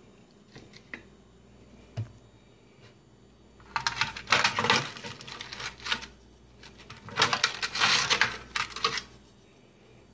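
Aluminium foil lining an air fryer basket crinkling and rattling as tongs grab ribs from it, in two bursts of about two seconds each, with a few light clicks before them.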